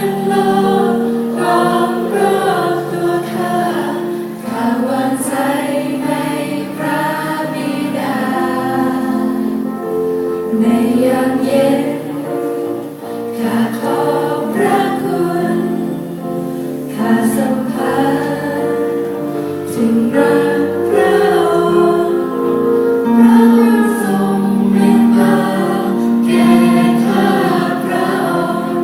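Youth choir singing in harmony, several voice parts holding long notes together.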